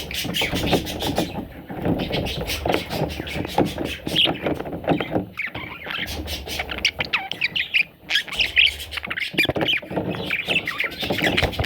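Several budgerigars chattering together, a dense mix of quick chirps, squawks and warbling calls.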